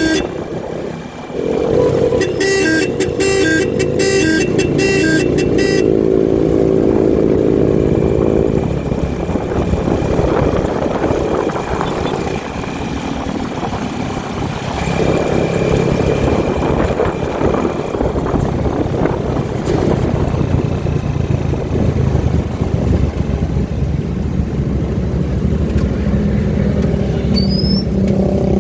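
A motor vehicle running on the road, with steady engine and traffic noise. A louder pitched engine sound stands out for the first several seconds.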